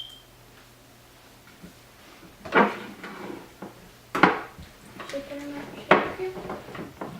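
A spatula stirring slime in a mixing bowl, clacking against the bowl three times about a second and a half apart.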